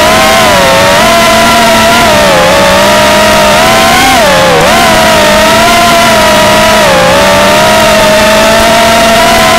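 A 6S FPV quadcopter's brushless motors and propellers whining loudly in flight. The pitch dips and climbs again several times as the throttle is eased off and pushed back.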